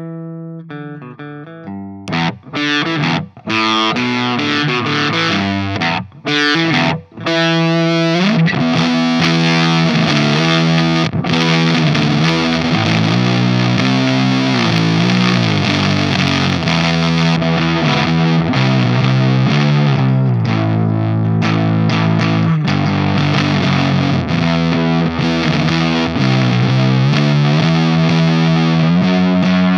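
Riffs played through a Catalinbread SFT overdrive pedal, giving a heavy, distorted tone with a strong low end. A few sparse notes and stop-start chords come first, then continuous riffing from about eight seconds in.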